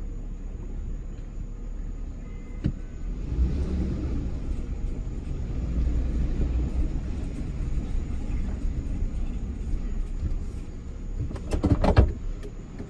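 Pickup truck driving, a steady low engine and road rumble heard from inside, with a few sharp knocks about a second before the end.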